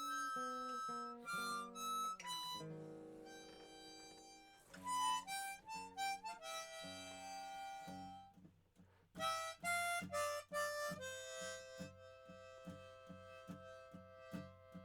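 Harmonica playing a melody of held notes over guitar accompaniment, an instrumental break in a folk song; in the second half the guitar strums in an even rhythm under a long held harmonica note.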